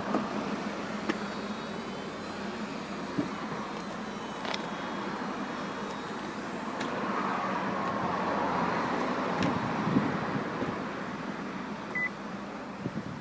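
Vauxhall Cascada's powered fabric roof folding down: a steady motor hum with a few sharp clicks, swelling in the middle as the roof stows, then a short beep near the end that signals the roof has finished lowering.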